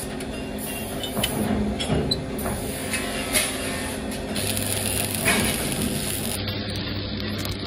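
A few light metal clicks as a steel trowel blade is set on a welding jig. Then a stick (arc) welder strikes and burns on the joint about halfway through, with a steady low hum for a few seconds.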